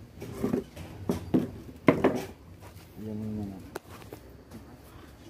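A quick series of five sharp smacks or knocks within about two seconds, the loudest near the end of the run, followed about three seconds in by a short voiced call.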